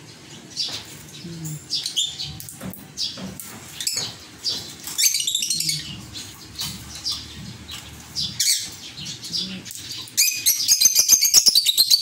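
Peach-faced lovebirds chirping in short, high calls again and again, with a dense flurry about halfway through. Near the end comes a fast run of rapid chattering chirps.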